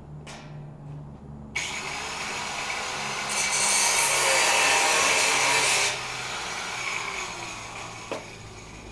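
Angle grinder grinding the edge of a fabricated steel front bumper, starting abruptly about a second and a half in, loudest from about three to six seconds in, then easing off. A sharp knock near the end.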